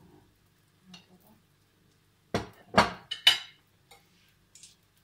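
Metal kitchen tongs and slotted spoons clattering onto a plate: three sharp clinks of metal a little past halfway, with a few faint clicks before and after.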